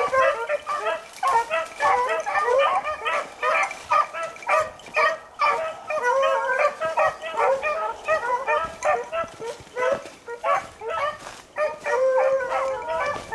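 A pack of beagle hounds baying on a rabbit's scent trail, several dogs' calls overlapping with no break.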